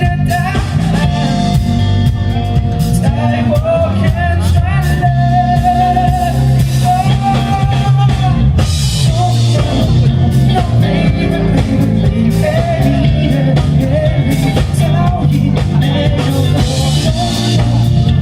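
Rock band playing live: drum kit, bass and electric guitars, with a bending lead melody carried over a steady, loud band sound.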